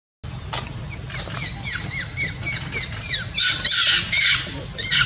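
A macaque's high-pitched squeaking calls: a quick run of short, falling squeaks, then a longer, harsher scream and one last short squeal near the end.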